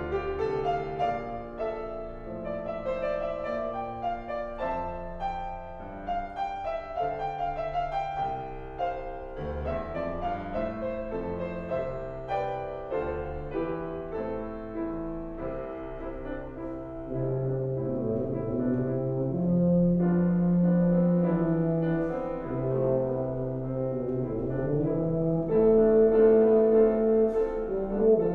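Tuba and grand piano playing a classical piece together. The piano plays alone at first; the tuba comes in with long held low notes, and the music grows louder in the second half.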